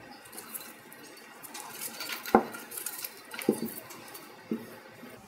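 Handling sounds as a new plastic tip seal strip is worked into the spiral groove of a scroll pump's outboard housing: light scraping and rustling with a few sharp knocks, the loudest about two seconds in and others near three and a half and four and a half seconds.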